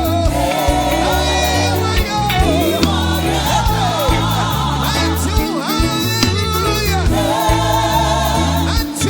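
Live gospel praise music: sung lead and choir voices with vibrato over a band with a steady bass line.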